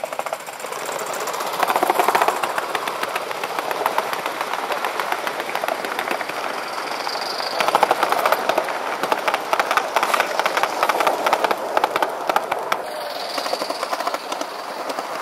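Large-scale live-steam model train running past on the track: a rapid, continuous clatter of wheels and running gear over the rails, peaking as the train passes closest, about two seconds in and again around eight seconds.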